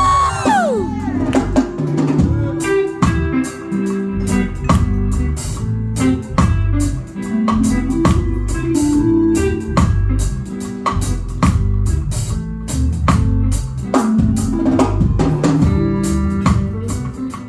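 Live band playing an instrumental groove: electric guitar over a moving bass line and drum kit.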